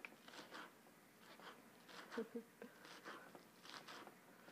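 A knife chopping green onions on a cutting board: faint, uneven crunchy chops, about two or three a second.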